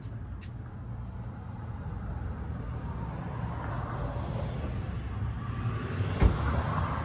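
Steady low background rumble, with a single sharp knock about six seconds in.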